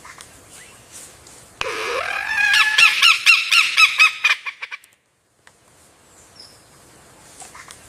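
Lyrebird song: a loud call of several layered whistled notes, turning into a rapid run of repeated notes that speeds up, lasting about three seconds and cut off abruptly.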